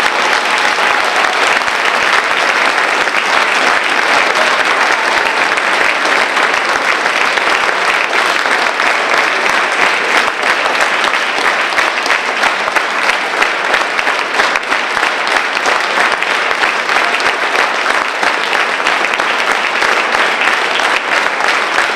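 A large concert audience applauding steadily, a dense continuous clapping.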